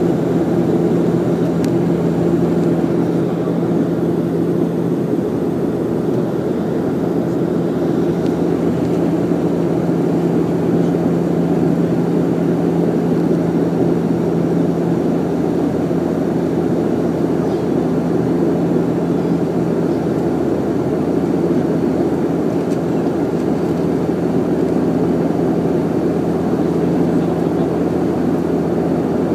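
Cabin noise of a Bombardier Dash 8 Q400 turboprop on its landing approach: the steady drone of its Pratt & Whitney PW150A engines and six-bladed propellers, heard from inside the cabin, with a steady low hum tone over the rushing noise.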